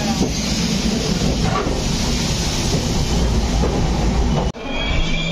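Indian Railways sleeper coach running, heard at its open door: a steady rumble with the clatter of wheels on track. Near the end the sound breaks off sharply and high, steady squealing tones come in.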